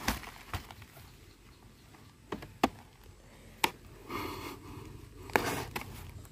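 Wire-mesh cage traps being handled with a metal rod and a wire hook: a handful of short, sharp metallic clicks and taps, with rustling of the plastic sack wrapping around four and five seconds in.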